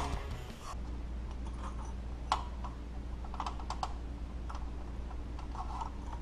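A few light, scattered clicks and taps of hand work on engine parts and hoses, over a low steady hum.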